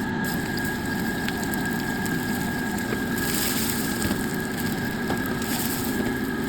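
Exhaust fan running steadily: a rush of air with a thin, steady whine.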